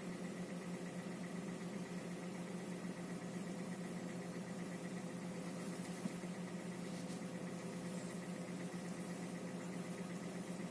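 Hyundai Solaris 1.4-litre four-cylinder engine idling steadily on its own while warming up, at about 1000 rpm. The engine has a knock at this speed, smaller than before but still present, and switching fuel grade has not cured it.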